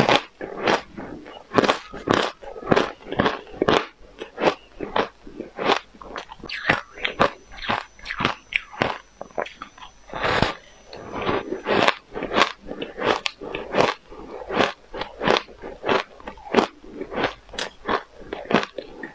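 A person biting and chewing frost-crusted refrozen ice chunks close to a clip-on microphone: crisp crunches one after another, about two a second.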